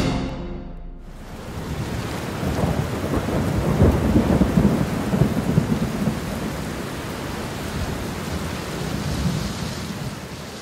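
Steady rain with low rolling thunder, loudest a few seconds in.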